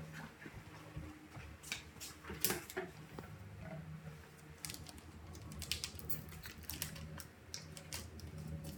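Scattered light clicks and taps at irregular intervals as small objects, such as a plastic bottle and a sheet of paper, are handled and set down on a surface.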